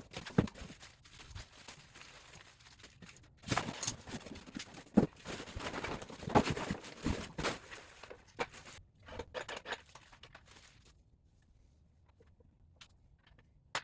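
Cardboard box and packaging being opened and handled: irregular rustling and scraping, then a few scattered clicks, dying down near the end.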